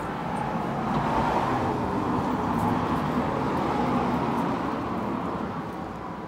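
Steady road traffic noise: cars running on the street alongside a car park.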